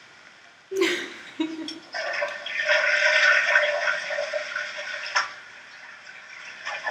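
Toilet flushing: a knock, then a rush of water for about three seconds that stops with a click.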